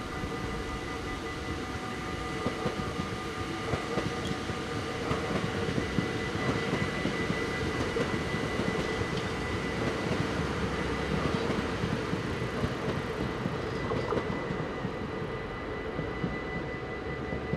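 NS Sprinter electric passenger train running over a level crossing, its rumble growing louder in the middle with irregular clacks from the wheels on the rails. Under it, the crossing's warning bell rings steadily.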